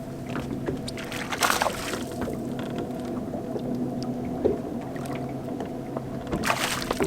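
A boat motor runs steadily, a low even hum with overtones. Two brief noisy bursts come about a second and a half in and near the end.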